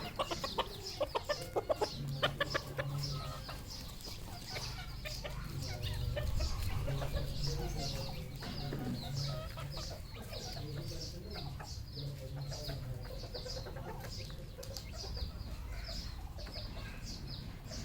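Red junglefowl clucking, with a quick run of clucks in the first couple of seconds and short high calls repeating throughout. A low rumble runs underneath.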